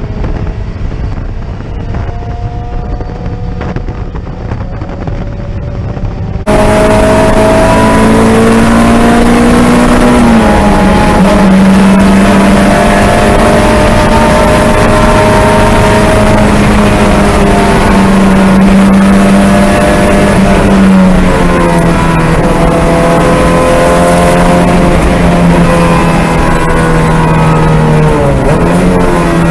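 Mazda Miata's four-cylinder engine pulling at high revs, heard from inside the cabin. A few seconds in, the sound cuts abruptly to a louder, fuller recording. The engine note holds steady, then drops in pitch about two-thirds through and dips briefly near the end as the car slows.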